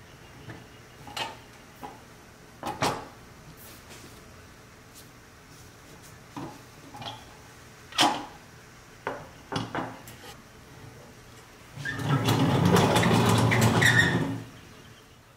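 A rusty pressed-steel toy dump truck being handled on a work mat: scattered light knocks and clanks of its metal body and bed. Near the end comes a louder rumbling scrape lasting about two seconds as the truck is moved across the table.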